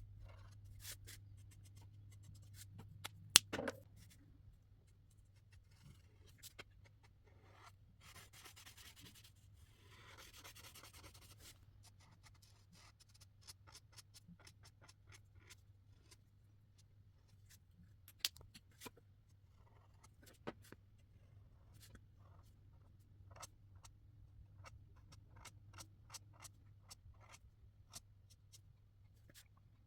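Marker tips scratching across paper in strokes, with scattered taps and clicks, a sharp loud click a little over three seconds in. A faint steady low hum lies underneath.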